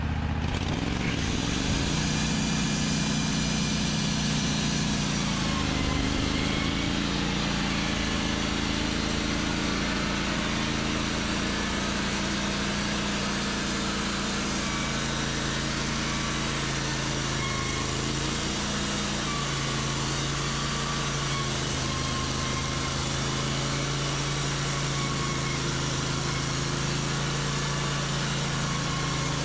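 Wood-Mizer LT15 Wide portable sawmill's engine coming up to speed about a second in, then running steadily under load as the band saw cuts a board from a white pine log.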